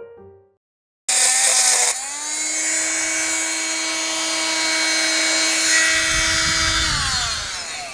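Electric power tool cutting aluminum bar stock. It starts suddenly with a harsh, bright burst, then runs with a steady motor whine, and near the end winds down with falling pitch.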